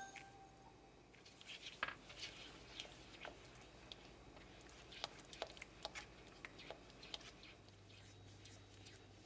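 Faint, irregular soft clicks and scrapes of a silicone spatula stirring sugar into thick mung bean paste in a nonstick pan as the mooncake filling is cooked down.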